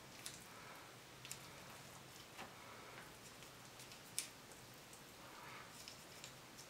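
Light wooden chopsticks ticking and clicking faintly as they dig into noodles on a plastic plate: about half a dozen scattered ticks over near silence, the clearest about four seconds in.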